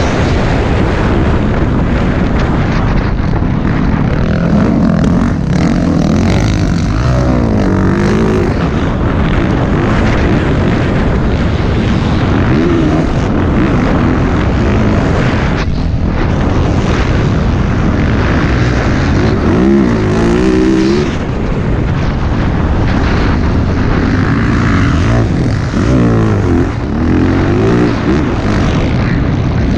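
Motocross dirt bike engine being ridden hard, revving up and dropping back again and again as the throttle is opened and closed, with several clear rising revs.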